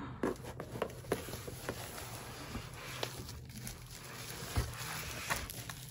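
Rustling of an opened parcel box and its packing being handled, with many small irregular clicks and taps and one soft thud about four and a half seconds in.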